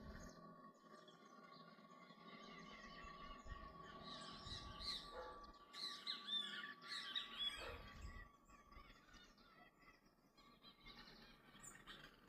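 Birds chirping faintly, with a cluster of short, twittering calls in the middle, over a steady faint tone; a few soft low thumps.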